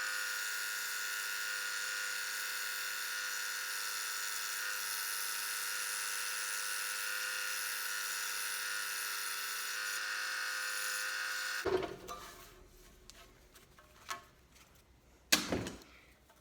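Scroll saw running steadily with an even motor hum, cutting thin 1/8-inch Baltic birch plywood, then switched off and stopping abruptly about three quarters of the way through. A few light knocks and one sharp click follow near the end.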